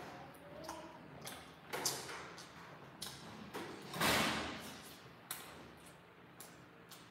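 Close-up eating sounds: chewing of grilled dried fish and rice, with scattered clicks of a metal spoon against the dishes. The loudest is a burst of noise about four seconds in, as a spoonful goes into the mouth.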